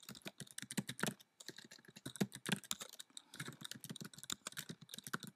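Typing on a computer keyboard: quick, irregular keystroke clicks, with a couple of short pauses.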